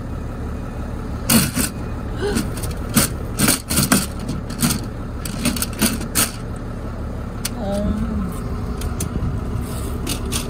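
The aluminium top cover of a Tesla Model 3 battery pack being handled and lifted off, a run of sharp metallic knocks and clatters during the first six seconds or so. A steady low engine-like rumble runs underneath.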